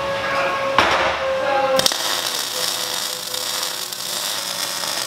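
MIG welder arc crackling and sputtering steadily as a weld is run on a steel sleeve over square steel tubing. There is a louder surge about a second in and a sharp click just before two seconds.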